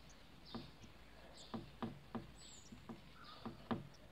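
Faint felt-tip marker writing on a whiteboard: short scratchy strokes and light taps of the tip on the board, several of them irregularly spaced. A few thin, high bird chirps are in the background.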